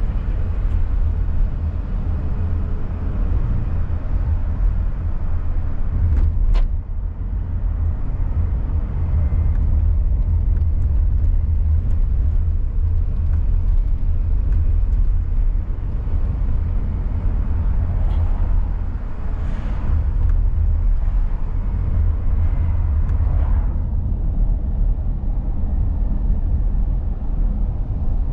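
Car driving, with a steady low road and engine rumble. There is a sharp click about six and a half seconds in.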